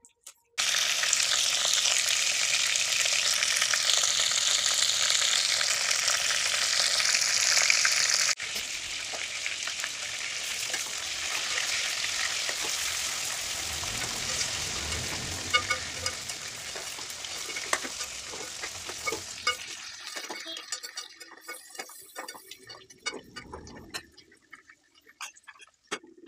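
Stuffed capsicums frying and sizzling in hot oil in an aluminium pressure cooker, with a spoon stirring and scraping against the metal and clicking now and then. The sizzle is loud for the first eight seconds, drops suddenly, then carries on more quietly with stirring clicks and dies away over the last several seconds.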